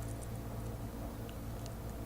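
A few faint, small clicks of plastic Lego bricks being handled and pressed together, over a steady low hum.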